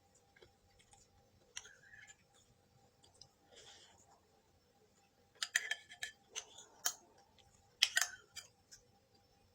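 Close-up eating sounds: sharp utensil clicks and short crunches of someone eating braised pork and vegetables, coming in clusters, the loudest about five to eight seconds in.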